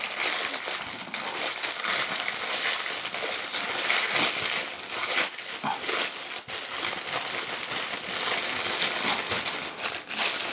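Clear plastic bag and bubble wrap crinkling without a break as they are handled and pulled open around a microphone.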